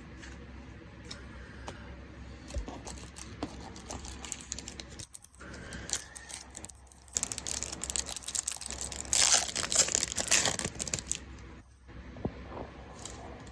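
A trading-card booster pack's foil wrapper being torn open and crinkled, with loud tearing and rustling in the middle of the stretch; light clicks and rustles of cards being handled before and after.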